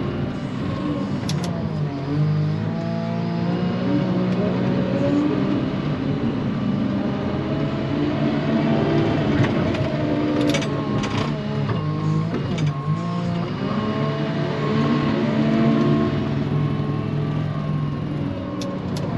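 Diesel engines of heavy snow-removal equipment at work: one runs steadily while another revs up and down again and again as it loads snow. A thin high beep sounds on and off over it.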